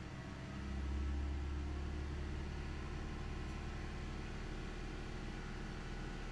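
2010 Hyundai Accent's four-cylinder engine running steadily with the throttle held at about 2000 RPM, as the engine is held at that speed to test the O2 sensors' response.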